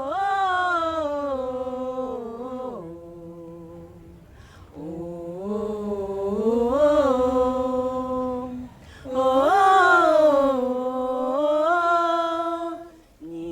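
A single voice singing unaccompanied in three long phrases of held notes that slide up and down between pitches.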